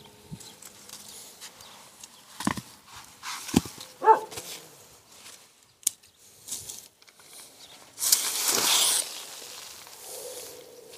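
White non-woven frost-protection fleece rustling as it is unwound from a shrub, with the loudest swish about eight seconds in as it is flung aside. A few sharp knocks come from bricks being moved off its edges.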